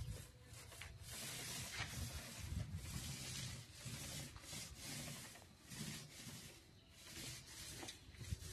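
Paint roller on an extension pole rolling paint onto a wall: repeated rubbing swishes, one with each up-and-down stroke.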